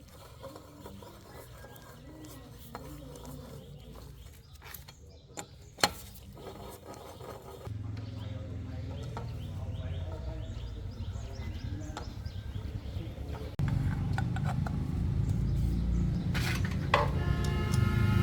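Sharp metallic clinks and knocks, with a low steady rumble that comes in about halfway through and gets louder near the end.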